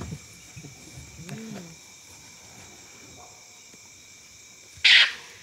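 Short, loud, hissing snarl from the fight between a white-tailed mongoose and African wild dogs, coming near the end. A brief low call comes about a second in. Crickets trill steadily throughout.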